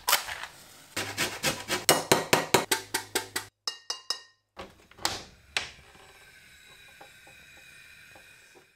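A match struck on the side of a matchbox, then a quick regular run of about a dozen sharp knocks, a few ringing clinks of a metal spoon against a ceramic bowl, and a faint steady hiss near the end.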